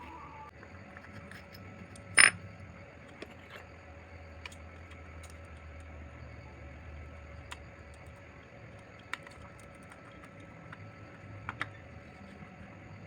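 Metal hand tools and engine parts clinking during work on a motorcycle engine's camshaft timing: one sharp metallic clank about two seconds in, then scattered light clicks and taps.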